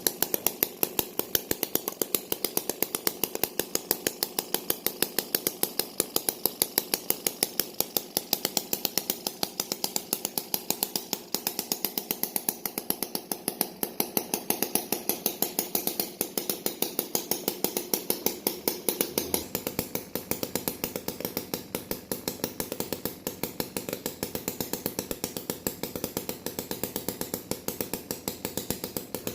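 A small engine running steadily, with sharp, even beats at about five a second.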